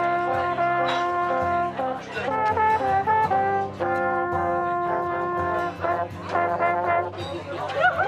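Three alphorns played together, holding long notes in harmony in phrases separated by short breaks.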